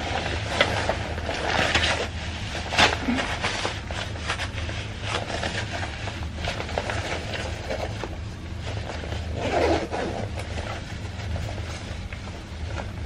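Rustling and rubbing of a padded winter jacket's fabric as it is pulled on over the head, a struggle because the neck zipper is still closed. A steady low hum runs underneath.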